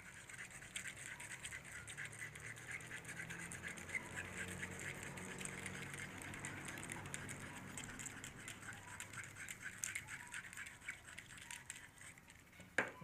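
Fishing hook point scraped back and forth on a knife sharpener in quick, light strokes, several a second. A single sharp click near the end.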